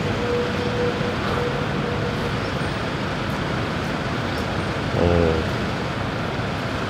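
Steady city street traffic noise, an even wash of cars and buses on the road, with a brief pitched sound about five seconds in.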